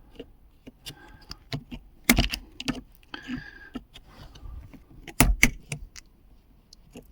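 Metal tweezers clicking and scraping in the handbrake lever's button socket, picking out leftover fragments of broken plastic clips, with two sharper knocks about two and five seconds in.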